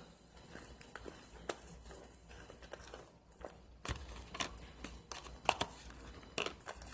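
White slime squished and pulled by hand in a clear plastic tub, giving irregular sticky clicks and pops.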